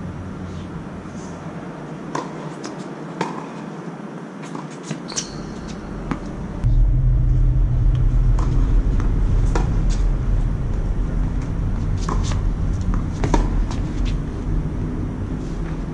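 Tennis rally: a string of sharp knocks from a racket striking the ball and the ball bouncing on the hard court, often about a second apart. Under them is a low steady rumble that gets louder about six and a half seconds in.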